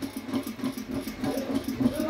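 Rapid pulsing metal creak, held at one steady pitch, as a screw in a chrome salon chair base is turned with an Allen key.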